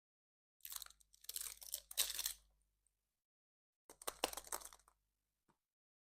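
A surprise egg's packaging being torn and cracked open by hand: two spells of crinkling and crunching. The first comes about half a second in and lasts about two seconds; the second, shorter, comes near four seconds.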